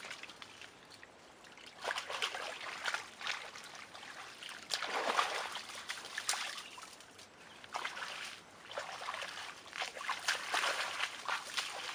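Shallow muddy water splashing and sloshing as people wade, grope about in it with their hands and stride through it. The splashes come irregularly in clusters, the loudest about five seconds in.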